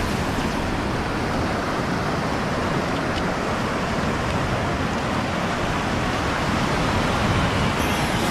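Steady rushing noise of surf and wind, even throughout with no distinct events.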